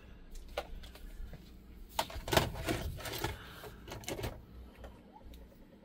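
VHS cassette pushed into the Samsung DVD-V3650's VCR slot and drawn in by the loading mechanism: a series of irregular mechanical clicks and clunks, loudest about two and a half seconds in.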